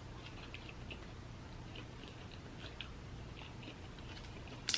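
Faint chewing of a person eating, with scattered small soft clicks and a sharper click near the end, over a low steady background hum.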